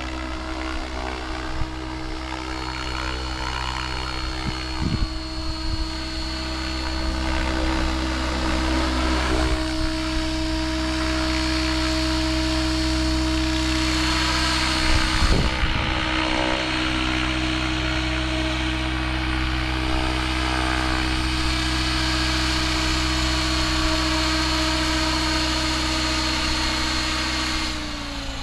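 Mikado Logo 700 electric RC helicopter flying: the steady whine of its motor and rotor blades, growing louder as it comes closer, then dipping in pitch and level near the end.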